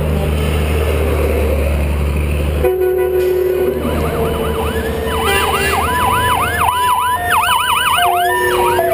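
A semi truck's diesel engine running loudly as it passes, then an ambulance siren sounding from about four seconds in, in a repeated rising-and-falling wail that switches to a faster yelp near the end.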